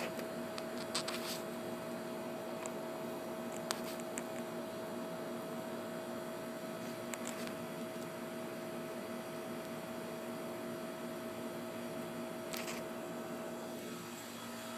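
A steady hum made of a few fixed tones over a constant hiss, with a few faint ticks.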